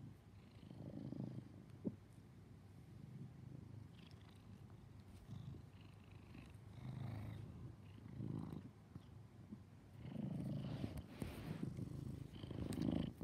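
Orange tabby cat purring while being petted, the purr swelling and fading with each breath. One brief tick about two seconds in.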